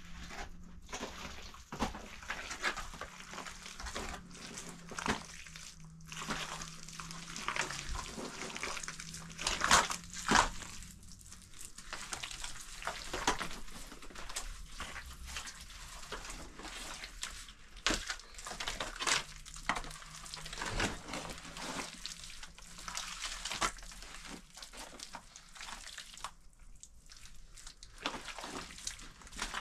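Wet straw-and-mud plaster (kahgel) being worked by hand: irregular squelching and scraping strokes, with a couple of louder strokes about ten seconds in.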